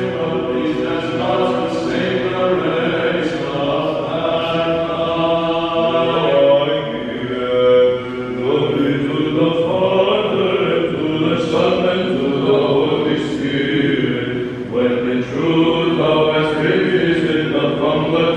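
Orthodox church chant: a group of voices singing a liturgical hymn without a break.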